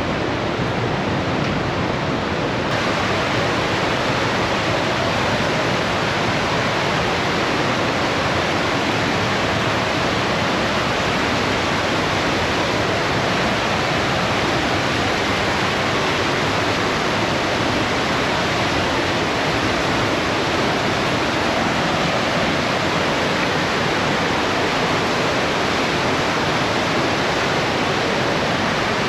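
The Partnach River rushing through its narrow rock gorge: a loud, steady wash of white water with waterfalls.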